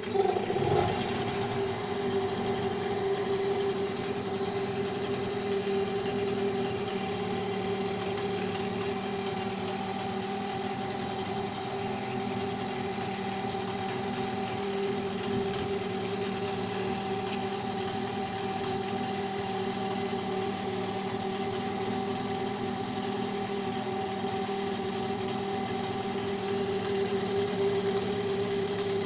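Engine just started, flaring briefly and then settling into a steady idle. It runs evenly with no sneezing or stumbling, after an overhaul meant to cure that sneezing.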